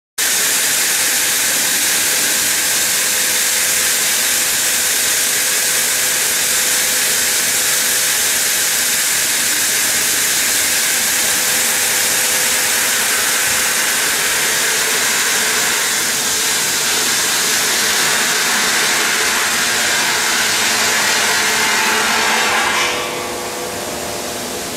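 Large circular saw blade of a bridge-type stone block cutting machine grinding through a stone block under a water spray: a steady loud hiss with a faint steady hum. About 23 seconds in the hiss drops and the sound quietens.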